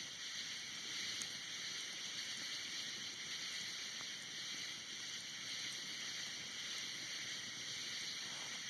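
Steady, high-pitched chorus of night insects calling without pause, the annoying sound that goes on all night. A couple of faint clicks sound through it.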